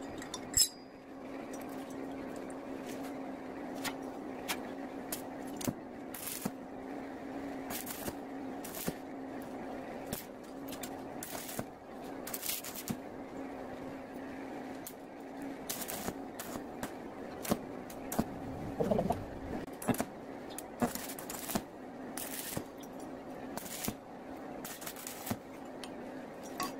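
Stick (arc) welder tacking two steel tubes together: a run of short arcs, each a fraction of a second long and a second or two apart, over a steady low hum.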